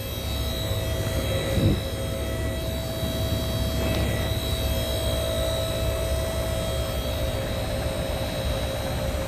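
Car lift's electric motor and hydraulic pump running steadily as the lift raises a car, a constant drone with a steady hum, and a short knock about two seconds in.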